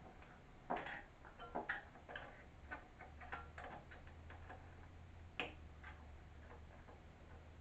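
Scattered small clicks and taps of hands handling and clipping parts of an LED light bar mount. The clicks are irregular, with sharper ones about a second in, near two seconds and past five seconds.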